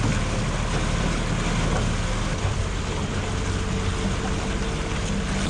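Small boat's outboard motor running steadily at a slow trolling speed, about 4 knots, with water rushing along the hull and wake and wind on the microphone.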